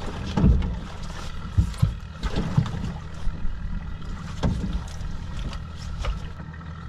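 Irregular knocks and thuds from handling and moving about on a fishing boat's deck, over a steady low engine hum.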